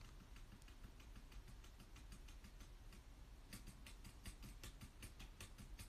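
Near silence, with faint quick clicks that come more often from about halfway through.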